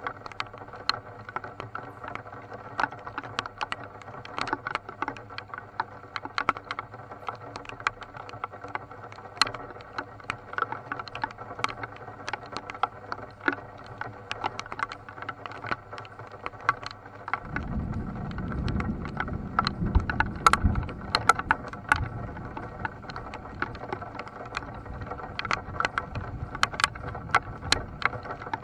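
Raindrops tapping irregularly on the car's roof and windscreen, heard from inside the car. A little over halfway through, a low rumble of thunder rolls in, loudest for a few seconds and then slowly fading under the rain.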